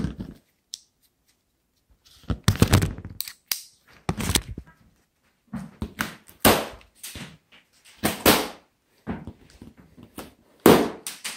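A Gerber pocket knife slitting packing tape along the top of a cardboard box: a string of short, sharp rasping cuts and knocks, starting about two seconds in.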